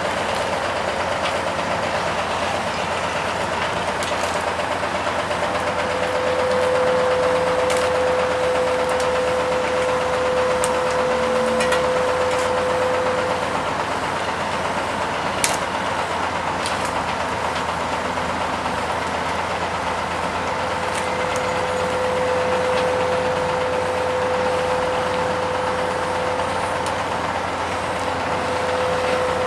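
Heavy diesel engines of an asphalt paver and a tipping trailer truck running steadily. A steady high whine comes in twice for several seconds, and there is one sharp click about halfway through.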